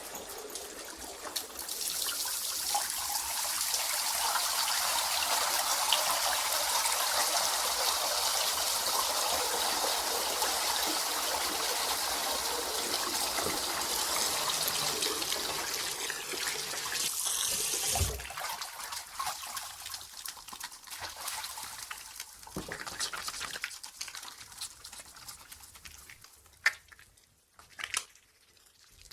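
Tap water running steadily over hands during hand washing, swelling about a second and a half in, then stopping with a thump about 18 s in. Drips, small splashes and a few sharp clicks follow, fading near the end.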